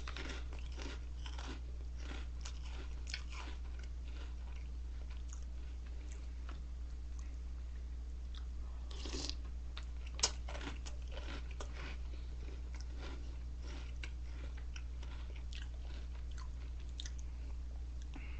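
Close-up chewing of a mouthful of Reese's Puffs cereal: irregular small crunches, with two sharper crunches at the start and about halfway through. A steady low hum runs underneath.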